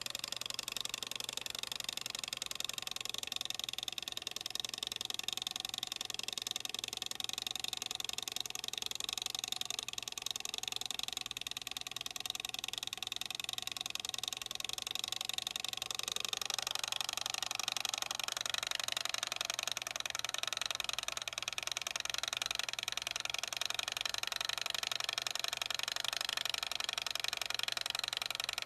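A small electric appliance running steadily: an even whirring hiss over a faint low mains hum, shifting slightly in tone about sixteen seconds in.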